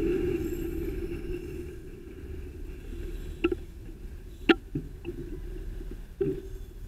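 Riding noise picked up by a bicycle-mounted camera: a steady rumble that fades as the bike slows to a stop. Then a handful of sharp knocks and rattles from the bike and camera mount, the loudest about halfway through.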